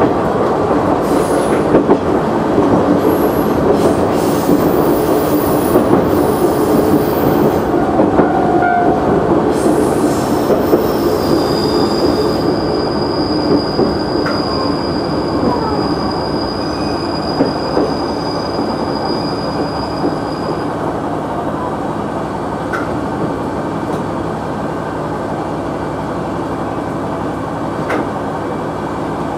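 KiHa 100 diesel railcar rolling over the rails and braking into a station. A thin, high steady brake squeal starts about ten seconds in and stops around twenty seconds. The running noise slowly dies down as the railcar slows toward a stop.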